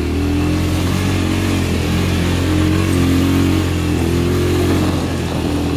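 Motorcycle engine running steadily as the bike rides over a rough, broken road, with a continuous rush of wind and road noise.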